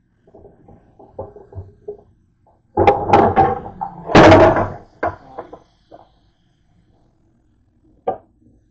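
Loud clattering and knocking at the kitchen sink for about two seconds, with lighter knocks before it and a single sharp click near the end.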